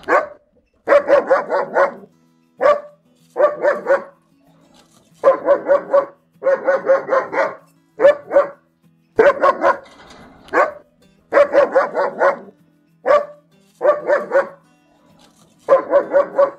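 German Shepherd dog barking loudly and repeatedly, in quick runs of several barks with short pauses between them.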